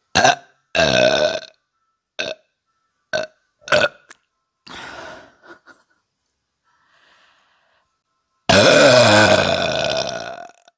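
A woman burping up gas from a bellyful of carbonated Sprite: a run of short, loud burps in the first four seconds, a softer one about five seconds in, then one long, loud burp of about two seconds near the end.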